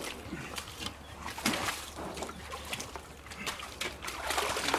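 Bulls' hooves splashing and squelching in muddy water, with scattered, irregular small splashes.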